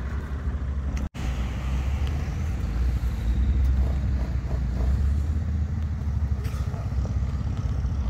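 Off-road 4x4 engine running steadily at low revs, a continuous low rumble, with the sound cutting out abruptly for an instant about a second in.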